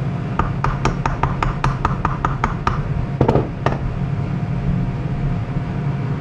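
A quick run of about a dozen light mallet taps on metal, roughly five a second, as a bushing is tapped onto an expanding arbor, followed by two brief scrapes, over a steady low hum.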